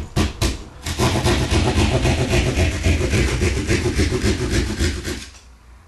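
Hand drywall (jab) saw cutting through gypsum sheetrock: a couple of sharp taps as the blade is poked into the board, then fast, even back-and-forth sawing strokes, about six or seven a second, that stop about five seconds in.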